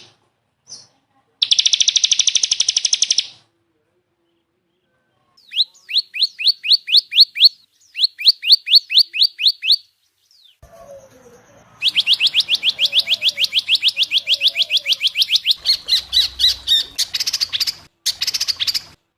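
Spliced recordings of songbird song made for tutoring cage birds. A fast high trill comes first. Two runs of rapidly repeated, down-sweeping whistled notes follow, then a long fast trill near the end. Each section cuts off abruptly.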